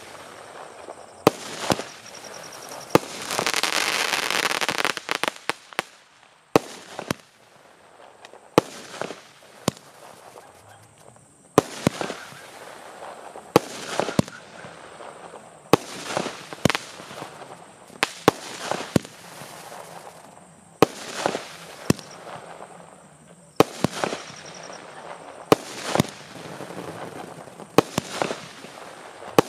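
A 120-shot sky shot firework cake firing shell after shell: sharp bangs about every one to two seconds, with crackling between them. A loud, dense hiss runs for a couple of seconds about three seconds in.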